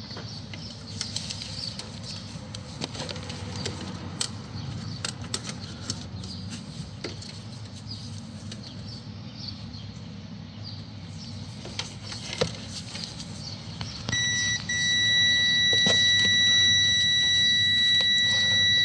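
Small clicks and handling noises of multimeter probes held on a new reverse light switch, then, about fourteen seconds in, the multimeter's continuity buzzer sounds a steady high beep, breaks off for an instant and holds on: the switch is making circuit while not depressed.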